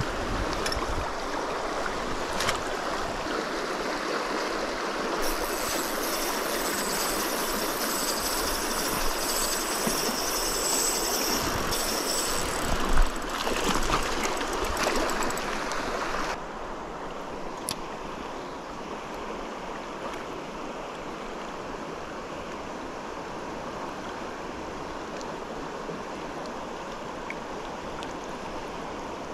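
Shallow, stony mountain river rushing over rocks, a steady water noise, with a short louder splash about thirteen seconds in as the landing net is dipped into the water. Partway through the rush drops abruptly to a quieter, smoother river flow.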